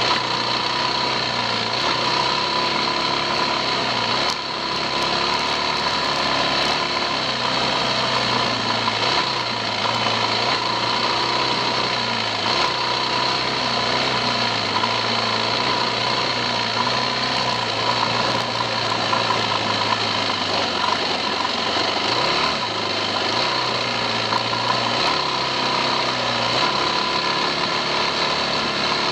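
Yamaha 250cc dirt bike engine running continuously while riding a trail. Its pitch rises and falls with the throttle, with a brief drop about four seconds in. It is heard close up from a camera mounted on the bike.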